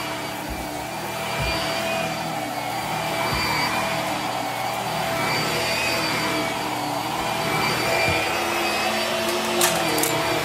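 Hart corded upright vacuum cleaner running steadily as it is pushed over carpet, its motor giving a steady whine over the airflow. A few soft bumps come as the head moves, and there is a sharp click near the end.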